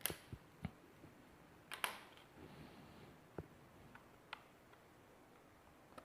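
Sharp, scattered plastic clicks and snaps from a Lenovo IdeaPad 100 laptop's bottom case being pried apart with a plastic card, its retaining clips working loose. There are about six clicks, the loudest about two seconds in.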